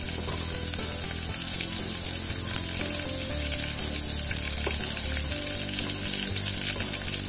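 Sliced garlic and onion frying in hot coconut oil in a clay pot, a steady crackling sizzle: the tempering stage of a curry.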